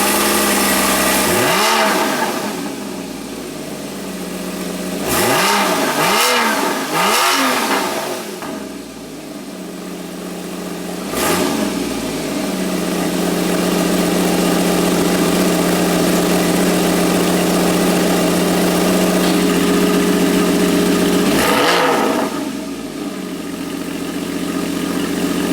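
Porsche Boxster 981's flat-six through the sport exhaust, idling from a cold start. It is blipped about six times, each a quick rise in revs that falls back to a steady idle.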